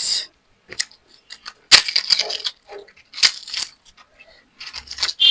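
Clinks of eating from a metal plate of fried rice: a few sharp metallic clinks, the loudest about two seconds in and again a second and a half later, between softer scraping and eating noises.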